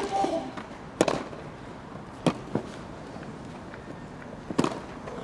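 A tennis rally: tennis balls struck by rackets, a sharp crack about every one to two seconds, with two close cracks a little past the middle (a bounce and a hit). The tail of a player's grunt fades out at the very start.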